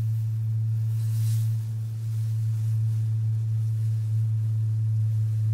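A steady, low, nearly pure tone: a sustained synth bass note in background music.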